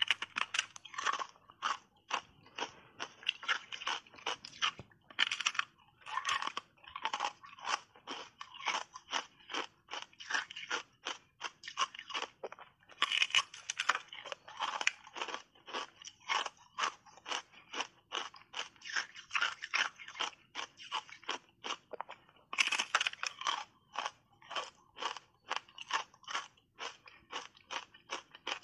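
Thin sheet of ice coated in matcha powder being bitten and chewed: a quick run of crisp crunches, several a second. Denser, louder crunching comes near the middle and again about three-quarters of the way through, at fresh big bites.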